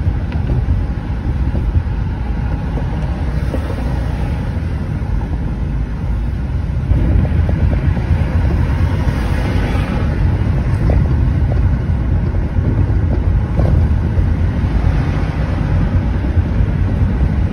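Road noise inside a moving car's cabin on a freeway: a steady low rumble of tyres and engine, growing louder about seven seconds in.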